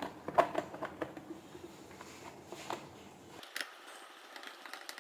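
Faint scattered clicks and light taps, a dozen or so irregular ones, of small parts being handled, over quiet room tone.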